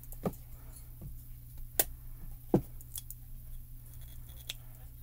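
Scattered sharp plastic clicks and taps, about five, as small stamp ink pads in plastic cases are handled, opened and closed, two of them louder snaps.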